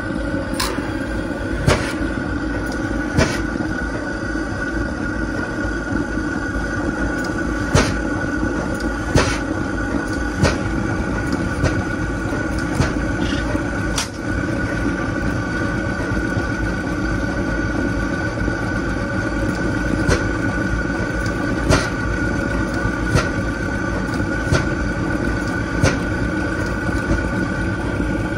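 Chicago Pneumatic 100 hp two-stroke semi-diesel engine, started on compressed air and running slowly: a sharp report every second or so, with some beats missing, over a steady mechanical din.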